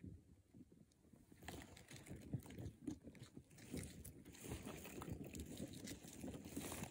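Faint scratching and crunching of short-beaked echidnas moving over stony soil and rock, their claws and spines scraping. It sets in about a second and a half in as a run of small clicks and crackles.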